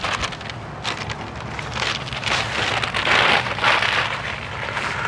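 Crackling rustle and wind buffeting on the microphone, loudest a little past the middle, over a steady low rumble.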